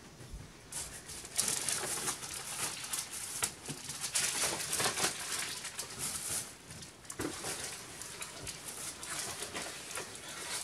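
Paper and plastic shopping bags rustling and crinkling as they are carried in and handled, in irregular bursts.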